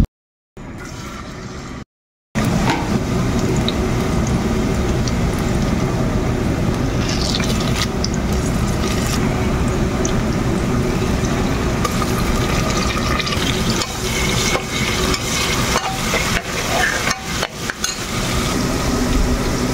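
Chopped onion and whole spices sizzling in hot oil in an aluminium pressure cooker, with a slotted spoon stirring and knocking against the pot now and then. The sizzling starts about two seconds in, after a near-silent gap.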